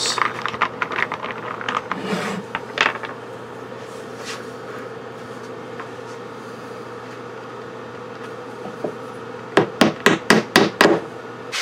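Hammer tapping wooden axle pegs through the wheels into a wooden toy trailer: a quick run of about eight sharp strikes near the end. Before that come scattered light clicks and knocks of small wooden parts being handled.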